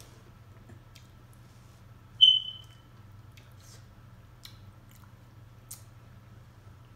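A single sharp, high ding about two seconds in, ringing out for about half a second, over a low steady hum and a few faint clicks.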